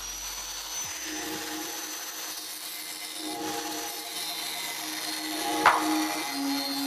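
Angle grinder with a thin cut-off disc running at full speed with a high whine, then cutting into a square steel tube. The cutting noise grows louder over the last couple of seconds.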